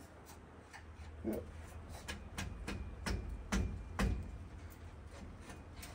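Irregular clicks and knocks of hand tools working an exhaust clamp loose, the strongest knocks a little past the middle.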